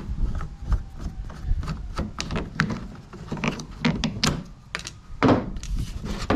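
Irregular clicks and knocks of the plastic tube parts of a backpack blower being loosened and handled, with a louder knock about five seconds in.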